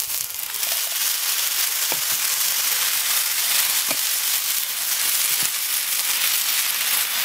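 Canned diced tomatoes sizzling as they are poured into a hot cast iron skillet of corn, the sizzle swelling as the liquid hits the pan and then holding steady. A few light clicks of a spatula against the pan.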